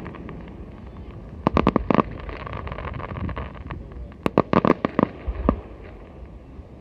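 Aerial fireworks going off: a quick cluster of sharp bangs about a second and a half in, and a second, denser cluster around four to five seconds, over a steady background din.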